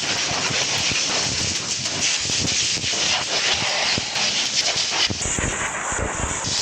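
Dual-action sander rubbing down primer on a van's side panel: a steady, loud hissing rasp.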